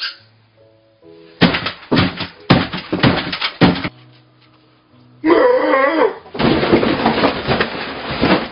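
A run of heavy thumps about half a second apart, then a loud wavering cry, then a loud, drawn-out crash as the table setting and the camera are knocked over. Light background music plays underneath.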